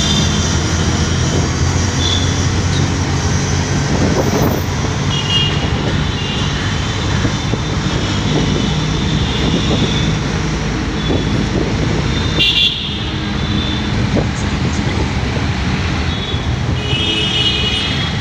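Busy road traffic heard from a moving vehicle: a steady low engine rumble, with vehicle horns tooting several times, the clearest about twelve seconds in and near the end.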